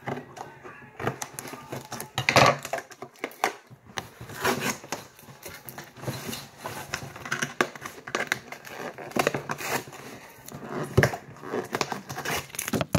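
Cardboard toy box with a clear plastic window being cut and pried open by hand: irregular rustling, crinkling and tearing of the packaging, with clicks and knocks as it is handled on the table.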